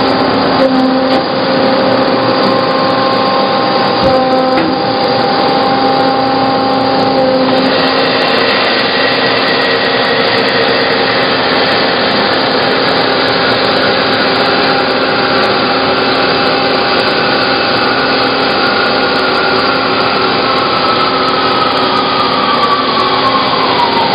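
Hyd-Mech H-16 horizontal bandsaw running and cutting through a block of wood. About eight seconds in, a whine starts that slides slowly lower through the cut and breaks off sharply near the end.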